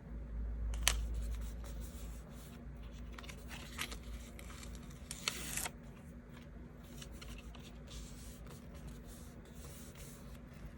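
Stickers and paper being handled on a desk while decorating a diary page: scattered light taps and rustles, with a brief scratchy rasp of paper a little after five seconds in, over a faint steady hum.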